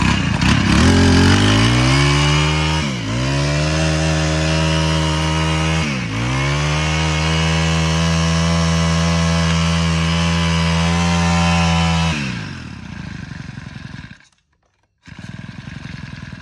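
Honda GX25 four-stroke brush cutter engine running at high throttle, easing off briefly twice, then dropping back to idle about twelve seconds in. After a short break it idles again near the end. It runs very smoothly.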